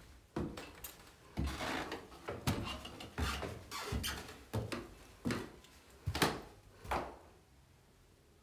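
Footsteps climbing open-tread wooden stairs with carpet tread pads, about one step a second, then a few steps onto the carpeted landing.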